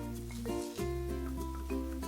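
Light background music: short plucked notes over a held bass note that changes pitch partway through.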